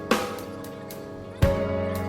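Instrumental post-rock background music: held electric guitar chords over a slow drum beat, with two drum hits, one just after the start and one about one and a half seconds in.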